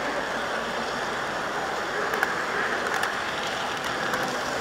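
Steady running noise of an HO-scale model train carrying the camera along the track, with a few sharp clicks from the wheels and track.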